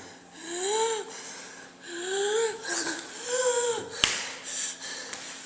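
A person gasping and wheezing for breath three times, each a rising-then-falling strained breath, acted out as an asthma attack. A sharp click follows the third breath.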